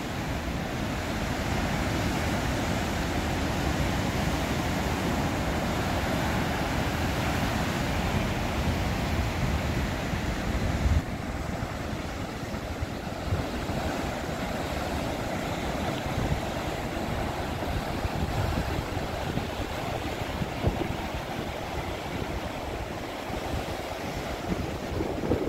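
Heavy storm surf, waves of 20 to 30 feet, breaking continuously against rocky cliffs and washing through the rocks. Low gusts of wind buffet the microphone.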